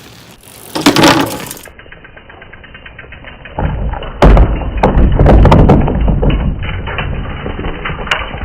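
A bike riding onto a thin wooden plank ramp propped on bricks: a loud knock about a second in, then from about halfway a long run of heavy thuds and clattering as the plank bangs and slides down the bricks.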